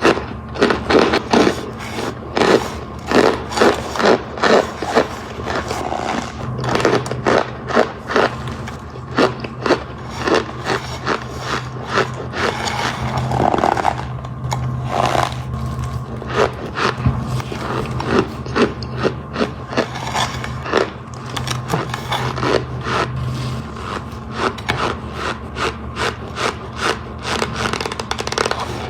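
Crunching and crushing of a dry, brittle material, many sharp crunches a second. A low steady hum runs under it through the middle stretch.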